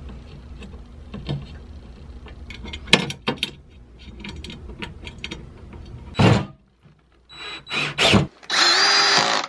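Scattered knocks and clicks of a metal clamp block and screws being handled against a router table's steel side, then near the end a cordless drill-driver runs for about a second, its whine rising slightly, driving a mounting screw.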